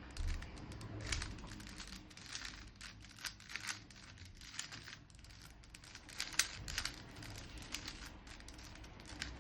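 Rubik's cube being turned by hand: a run of quick, irregular plastic clicks and clacks as its layers rotate.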